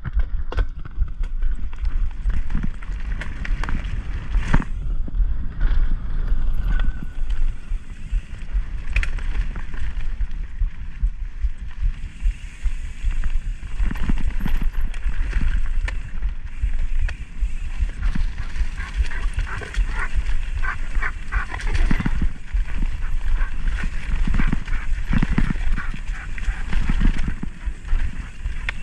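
Mountain bike being ridden over rough trail: constant wind rumble on the action camera's microphone, with tyres crunching and the 2023 Pivot Switchblade's frame and drivetrain clattering and ticking over the bumps.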